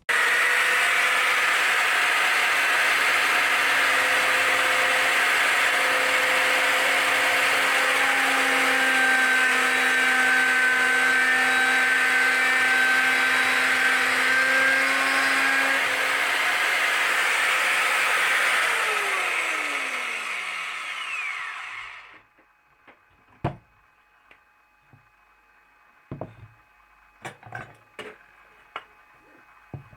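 Electric motor of a handheld dowel jointer running steadily at full speed, then switched off and winding down with a falling whine after about twenty seconds. A few light clicks and knocks follow.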